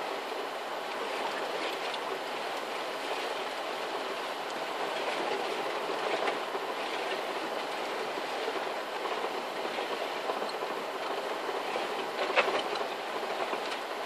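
A vehicle driving over a rough grass field, heard from inside the cab: a steady noise of tyres and running gear, with a few sharp knocks or rattles near the end.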